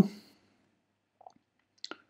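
Almost quiet, with a faint small tap a little past one second in and a short sharp click just before the end.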